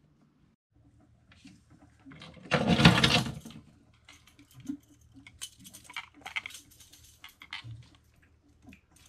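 Dive gear being handled on a boat deck. A loud rustle comes about three seconds in, followed by light clicks and clinks as a weight belt is fitted at the waist.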